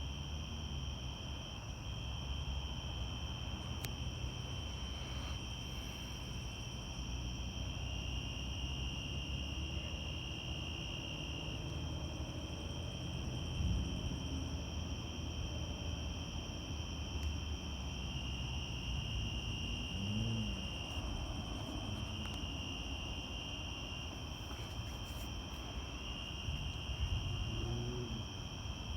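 Insects chirring steadily in a high, continuous tone that swells and eases in long stretches, over a constant low rumble.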